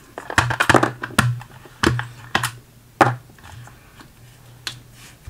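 AA batteries being pulled out of the plastic battery compartment of an automatic insect sprayer: a series of sharp, irregular clicks and knocks of battery against plastic.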